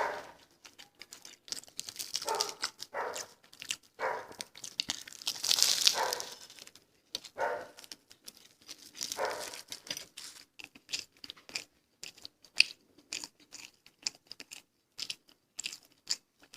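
Close-miked eating: chewing and crunching with many short wet mouth clicks, and a few longer louder patches of breath or mouth noise.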